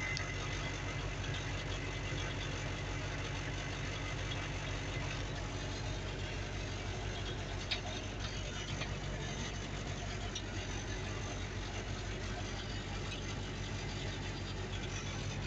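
Mertz 3250 floater's engine idling steadily, heard from inside its cab, with a single sharp click about halfway through.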